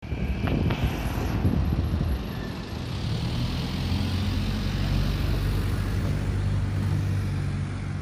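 Outdoor road traffic noise with a steady low hum setting in about three seconds in, and a few knocks in the first second.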